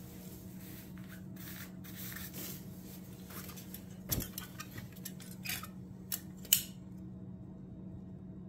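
A metal caulking gun being handled: rustling, then a handful of sharp metallic clicks, the loudest about six and a half seconds in, over a steady low hum.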